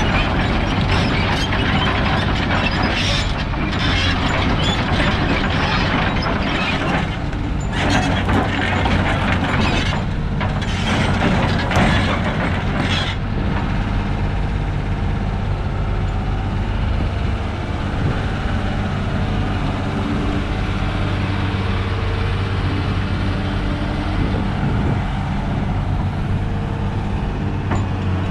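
Doosan DX225LCB hydraulic excavator's diesel engine running steadily. Heavy metallic clanking and rattling sounds over it for about the first half and then stops, leaving the engine hum on its own.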